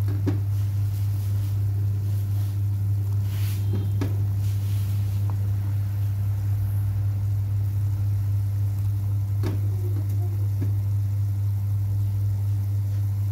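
Loud steady low electrical hum, with a few faint clicks about a third of a second, four seconds and nine and a half seconds in.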